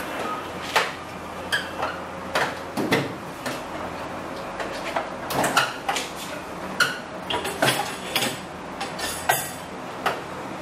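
Metal hand tools clinking and clattering in a steel tool-chest drawer as the drawer is slid open and the tools are searched through: a string of irregular sharp clinks.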